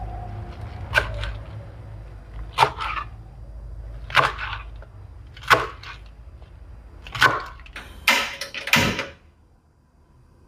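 Kitchen knife chopping through a bunch of caisin (choy sum) greens onto a plastic cutting board: seven sharp chops roughly a second and a half apart, the last two closer together, each with a brief tail.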